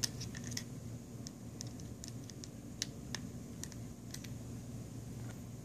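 Faint, irregular light clicks and ticks of a small Phillips screwdriver working the tiny screws on the LG G3 smartphone's plastic rear frame, with the frame handled between the fingers, over a low steady hum.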